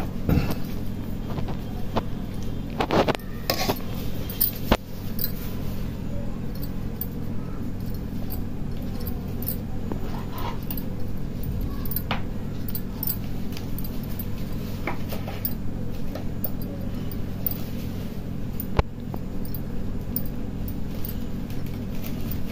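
Bangles clinking lightly now and then on the wrist of hands pleating momo dough, a few scattered sharp clicks over a steady low hum.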